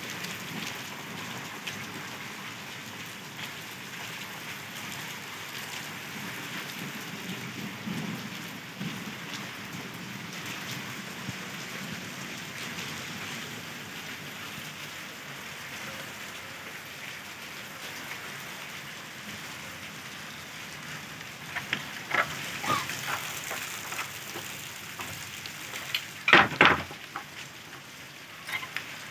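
Steady rain falling. A few sharp knocks and taps come about three-quarters of the way through, and a louder cluster of knocks follows near the end.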